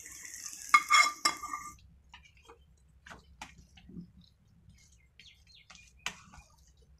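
A steel spoon clinks three times against a steel pan and bowl, ringing briefly, as a hot tempering of shallots, dried red chillies and curry leaves in oil and ghee is scraped onto mashed sambar rice, with a hiss over the first couple of seconds. Then quieter scrapes and taps of the spoon stirring the thick rice, with one sharper tap about six seconds in.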